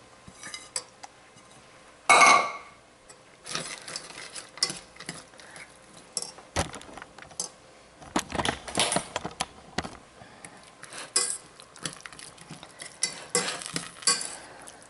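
Metal wire whisk stirring chicken and mixed vegetables into a thick sauce in a stainless steel saucepan, with irregular clinks and scrapes of metal on the pan. A louder clatter about two seconds in.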